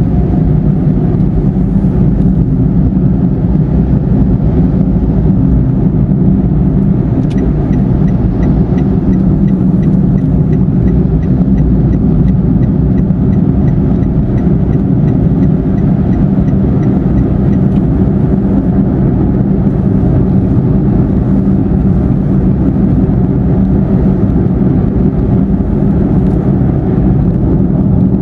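Steady car engine and tyre road noise heard from inside the cabin while driving at motorway speed.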